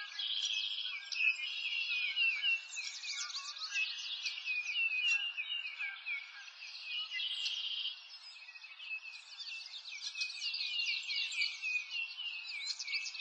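A dense chorus of many songbirds chirping and twittering at once: short high calls overlapping without a break.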